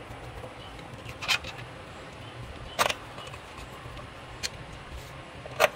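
Four short metal clicks and clinks, spaced about a second or more apart, as a small-engine carburetor is handled and fitted back onto its mounting.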